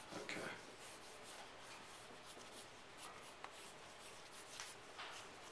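Wooden graphite pencil scratching across drawing paper in faint, short strokes as lines are sketched.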